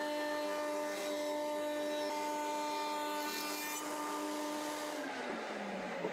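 Router in a router table, fitted with a combination edge-joining cutter, running with a steady whine while a board is fed past the cutter with a rasping cutting noise. About five seconds in the router is switched off and winds down, its whine falling in pitch.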